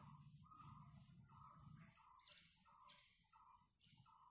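Faint swishing of a duster wiping a whiteboard, under a faint short call that repeats about every two-thirds of a second.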